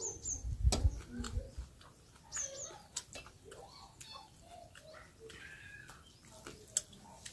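Close eating sounds from people eating rice and fish curry by hand: lip smacks and mouth clicks, with a few low thumps just under a second in. A small bird chirps in short high pairs twice, near the start and about two and a half seconds in.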